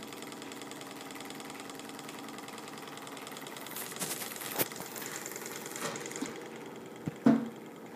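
Small bar-stock Stirling engine with a steel flywheel and two aluminium pistons running smoothly, a fast, even mechanical whirring. A few clicks come about four seconds in and a sharp knock near the end.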